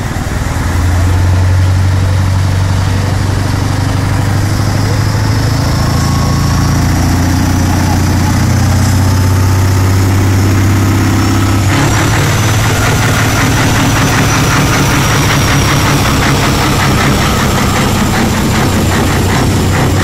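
Scania 143M 420's 14-litre V8 diesel engine idling with a deep, steady note. It grows louder about a second in, and around twelve seconds in the sound shifts as a fast, even rattle comes in on top.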